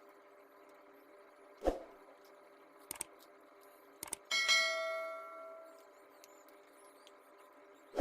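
Hand work on a car seat belt retractor being taken apart: a knock, a few small clicks, then about four seconds in a metal piece strikes and rings out, fading over about a second and a half.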